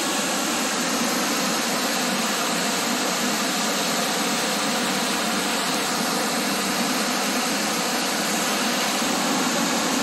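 Waterfall pouring over rock ledges: a steady, even rush of whitewater.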